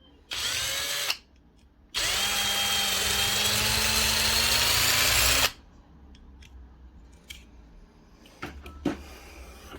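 Small power drill drilling out a rivet in a die-cast toy car's base: a short burst of under a second, then a longer run of about three and a half seconds with its pitch creeping up slightly, followed by a few light clicks and taps.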